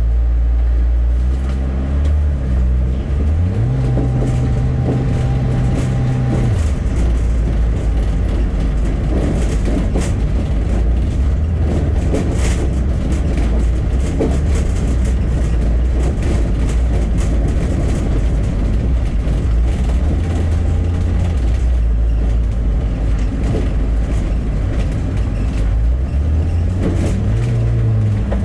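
Bus engine and road noise while driving. The engine note steps up in pitch a few seconds in, drops back after about six seconds, and climbs again near the end.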